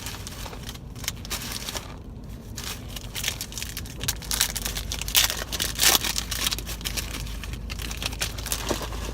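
Wrapper of a 2016 Rookies & Stars football card pack crinkling and tearing as the pack is opened, with irregular crackles that are loudest about halfway through.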